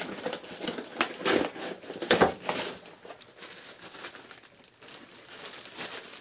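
Paper shipping envelope being torn open, then clear plastic packaging crinkling and rustling as it is handled. The tearing and crackling are loudest in the first couple of seconds, and the rustling is softer after that.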